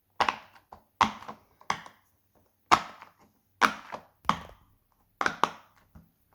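Silicone push-pop fidget toy being popped on its loud side: a string of about ten sharp pops at an uneven pace, roughly one or two a second, as the bubbles are pressed through.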